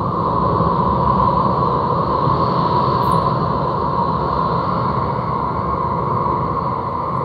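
Steady, loud rumbling noise drone with a constant hum running through it, the electronic sound score accompanying the dance played through the theatre's speakers.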